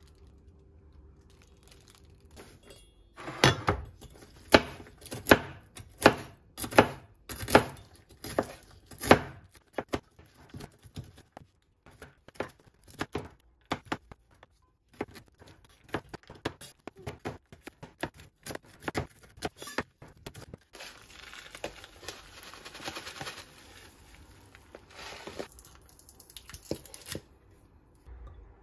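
Large kitchen knife chopping nuts on a wooden cutting board: a run of heavy chops a few seconds in, then quicker, lighter chopping. Near the end comes a stretch of rustling.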